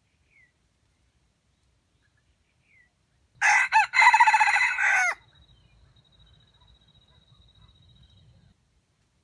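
A red junglefowl rooster crows once, a short clipped crow of under two seconds that drops in pitch at the end.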